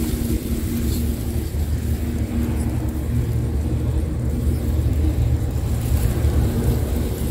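A small engine running steadily, a continuous low hum with a faint pitched drone above it.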